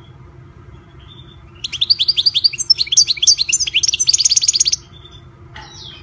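European goldfinch singing: a burst of about three seconds of quick twittering notes that ends in a fast, even trill, then one short call near the end.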